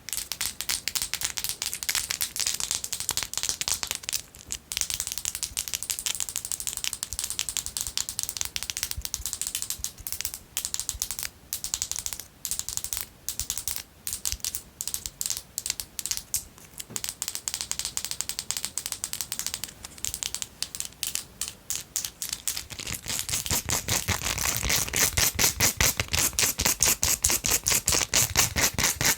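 Long fingernails tapping and scratching fast on a gel polish bottle, a dense run of quick clicks. About three-quarters of the way through it changes to louder, fuller tapping and scratching on a silicone brush.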